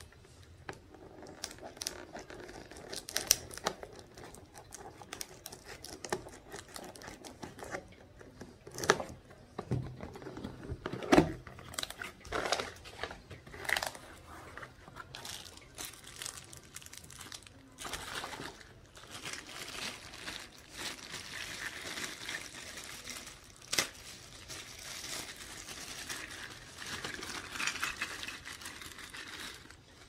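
Plastic bags and cardboard being handled while a box is unpacked: crinkling plastic wrap with sharp clicks and knocks through the first half, turning to a denser, steadier rustle over the second half.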